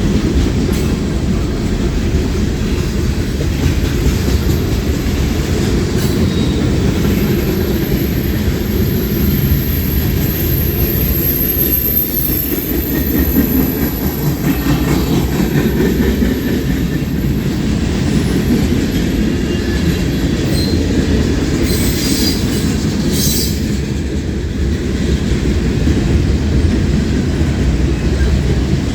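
Freight cars of a manifest train rolling past at close range: a steady heavy rumble of wheels on rail with clacks over the joints. A thin, high wheel squeal sounds from about seven seconds in until about seventeen seconds.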